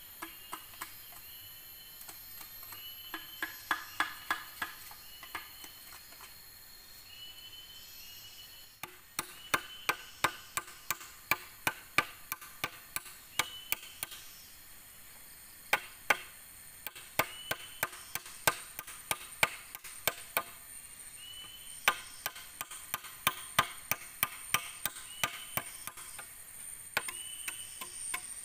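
Hollow bamboo pole being chopped with a blade: sharp knocks with a short hollow ring, about two a second, in runs of several strokes with pauses between.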